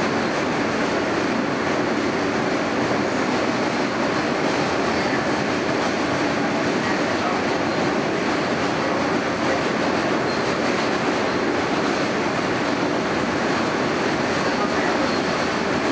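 Steady running noise of an R160A subway car at speed, heard from inside the car: an even rumble and rush of the wheels on the rails, with no change in pace.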